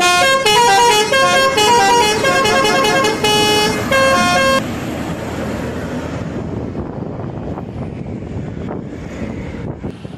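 Bus 'telolet' multi-tone musical air horn playing a quick tune of changing notes for about four and a half seconds, then stopping, leaving bus engine and road noise.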